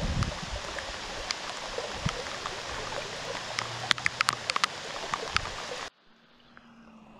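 Steady rain on the river and on the camera, a dense hiss with sharp ticks of single drops striking close by, over the rush of shallow stream water. About six seconds in it cuts off suddenly to a much quieter, faint hiss.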